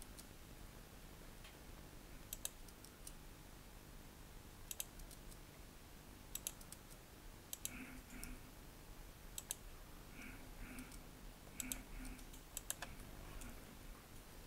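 Faint, scattered clicks of a computer mouse and keyboard, one every second or two, while models are placed and the view is changed in Blender.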